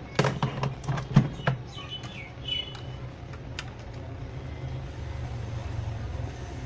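Clicks and knocks of a laptop charger's metal casing and parts being handled and fitted together, over a steady low hum. A few short chirps come about two and a half seconds in.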